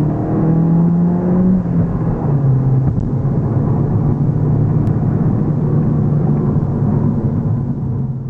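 Citroën DS3 Racing's turbocharged four-cylinder engine under way: the revs climb, drop about two seconds in, then hold steady. Road noise runs beneath it, and the sound fades out near the end.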